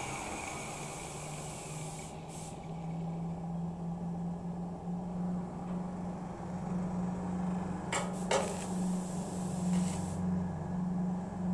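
Arc welding on sheet steel: short bursts of hissing crackle as the arc is struck, about 2 s in, twice near 8 s and again near 10 s, over a steady low hum.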